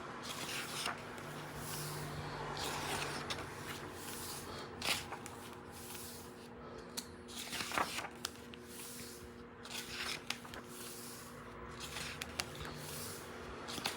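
Paper pages of a hardcover book being turned, a series of soft rustling swishes and light flaps every second or two, over a faint steady hum.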